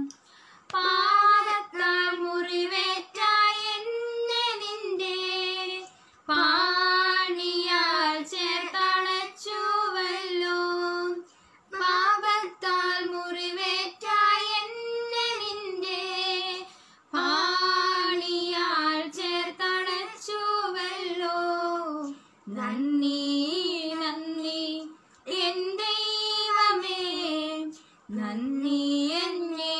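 Two female voices singing a Malayalam Christian worship song together with no accompaniment, in sung phrases a few seconds long broken by short pauses for breath.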